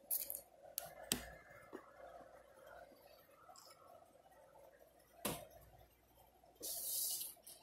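Wet mouth smacks from fingers being licked and sucked clean while eating fried chicken wings: three sharp smacks in about the first second, another about five seconds in. A short rustling hiss near the end.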